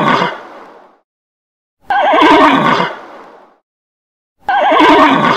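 A horse neighing again and again: a loud whinny with a quavering pitch that trails off, the same call repeated about every two and a half seconds.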